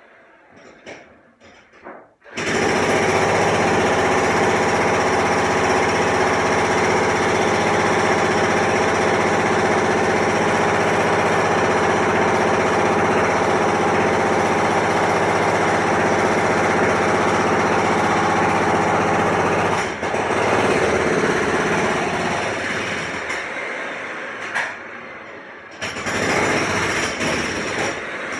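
Jackhammer pounding steadily. It starts suddenly about two seconds in, changes and eases off after about twenty seconds, stops briefly, then starts again near the end.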